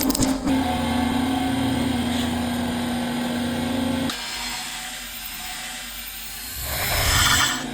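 150-ton hydraulic press's pump motor running with a steady hum that cuts off abruptly about four seconds in. Near the end there is a brief, louder whine and hiss.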